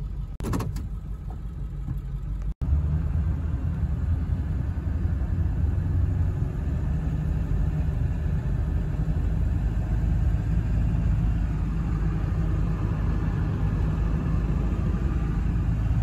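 Ford F-250 Super Duty with the 7.3 L Power Stroke diesel, heard from inside the cab while driving: a steady low engine drone and road rumble. It cuts out for an instant about two and a half seconds in, then runs on louder.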